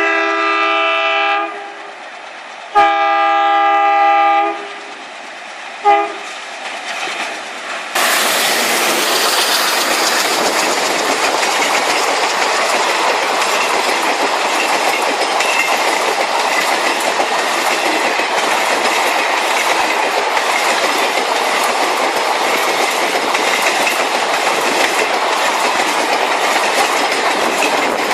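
Indian Railways train horn: two multi-tone blasts, the second starting about three seconds in, then a short toot. From about eight seconds in, the loud, steady noise of a train running along the track with wheel clatter starts suddenly and continues.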